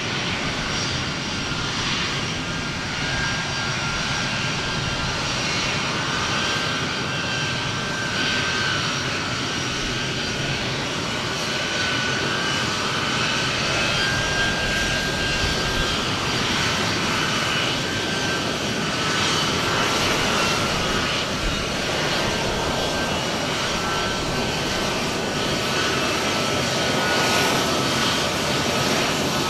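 Jet engines of a Boeing C-17 Globemaster III running on the airfield, a steady rushing noise with a high whine, growing gradually louder.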